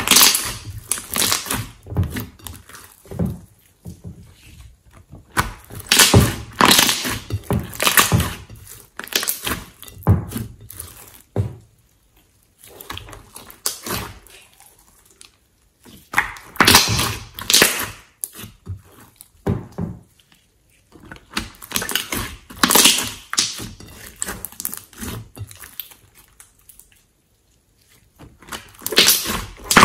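Hands squeezing, pressing and folding a large mass of glossy slime: wet, crackling clicks and squelches in irregular bursts, with short pauses between handfuls.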